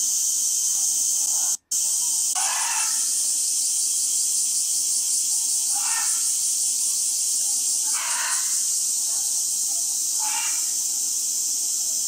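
Steady high-pitched insect chorus with a fine pulsing texture, dropping out for a moment about two seconds in. Short snatches of distant voices come through a few times.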